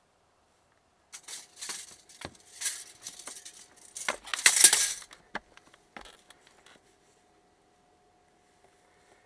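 A sheet of paper rustling and scraping as it is pressed and rubbed over a van's metal door step, with a few sharp taps, loudest about four and a half seconds in. After about six seconds it falls quiet, leaving a faint steady hum.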